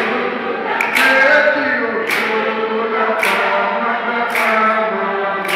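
A large mixed group of young people singing a hymn together, with hand claps on the beat about once a second.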